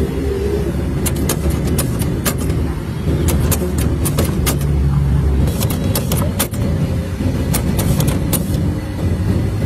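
Hand-lever potato chipper being worked, giving frequent sharp clicks and clacks of the metal mechanism, often two or three close together, over a steady low rumble of street traffic.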